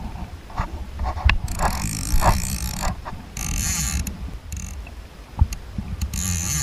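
Fly reel's ratchet check buzzing in three bursts of about a second each while a hooked salmon is played, over a low rumble.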